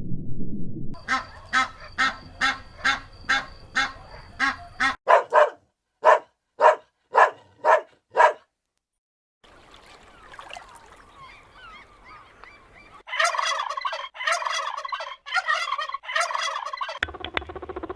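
Domestic fowl calling in several short edited clips: quick runs of repeated harsh, honking calls, a brief silence partway through, faint chirping, then another burst of loud calls near the end.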